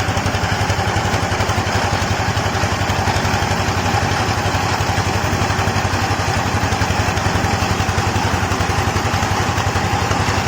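Engine-driven rice huller (selepan) running steadily: a fast, even engine beat under a constant rushing milling noise with a steady whine, unchanging throughout.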